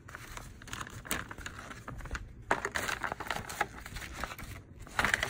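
Folded paper instruction sheet being handled and unfolded: uneven rustling and crinkling of paper.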